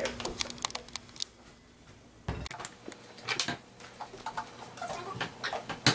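Scattered light clicks and taps of containers, lids and utensils being handled, with a dull knock about two seconds in and a sharp click near the end.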